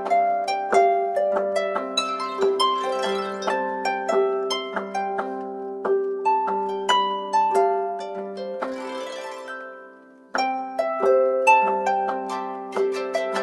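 Samsung phone ringtone: a quick melody of plucked, harp-like notes over a repeated note. It fades out about ten seconds in, then starts again abruptly.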